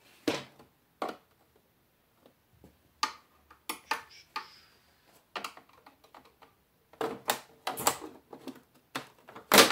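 Irregular clicks and knocks of hard plastic as the TV's back cover is worked and pried loose by hand, with a loud knock near the end.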